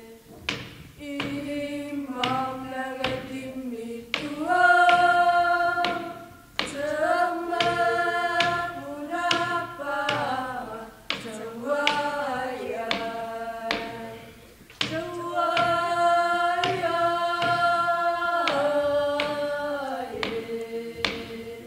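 A group of women singing a Greenlandic drum-dance song in unison, with a Greenlandic frame drum (qilaat) struck with a stick in a steady beat beneath the voices.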